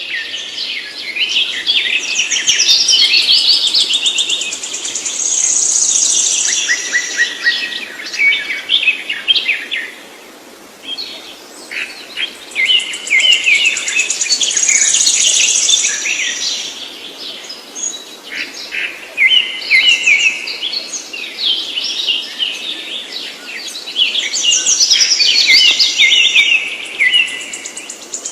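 A songbird singing long, rapid phrases of varied high chirps and trills, with short pauses between phrases.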